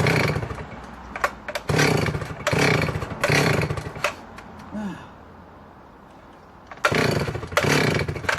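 Stihl 038 AV Super chainsaw being pull-started: about four quick pulls on the recoil starter, a pause, then two more near the end, the engine turning over each time without firing. The restart fails because the saw is set far too rich: the plug is wet and the low-speed needle is out 1¾ turns.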